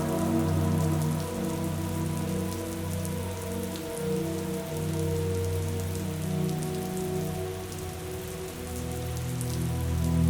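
Steady rain, a fizzing patter of many small drops, over soft held low musical chords that change about nine seconds in.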